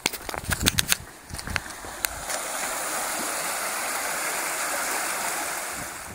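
Running footsteps on a path for the first second or two, then the steady rush of a shallow stream flowing over stones, easing off slightly near the end.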